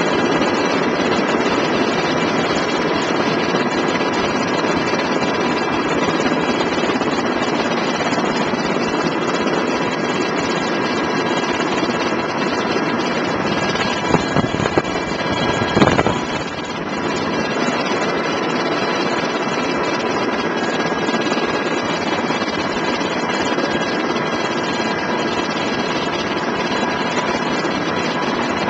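Military helicopter heard from inside the cabin in flight: the steady, loud noise of rotor and engines with steady high tones running through it. A few brief knocks come about halfway through.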